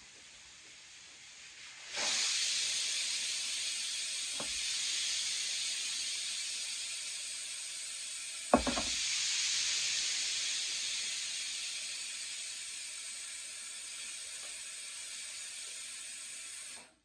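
A steady hiss that starts suddenly about two seconds in and cuts off sharply near the end, with a faint click about four seconds in and a sharp knock about halfway through.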